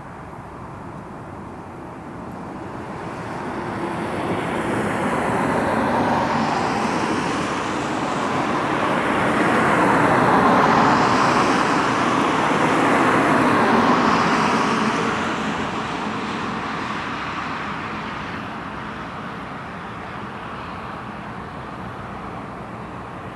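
Boeing 757-200 twin jet engines at takeoff thrust during the takeoff roll and climb-out. A roar builds over the first few seconds, is loudest about halfway through, then fades as the airliner lifts off and climbs away. A high whine shifts in pitch near the loudest part.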